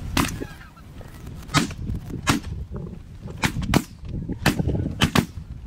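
Volley of shotgun blasts from several hunters firing together, about eight shots in quick uneven succession, some close pairs.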